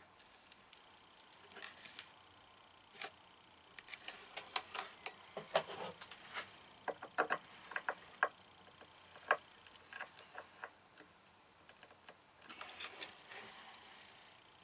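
Scattered small clicks and taps of a hand screwdriver and metal cabinet hardware as a knob is fitted to a cabinet door, with a brief rustle near the end.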